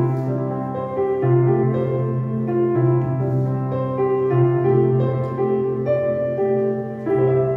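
Piano-style keyboard accompaniment playing slow held chords that change about every second and a half, with no singing over them: the instrumental close of a song.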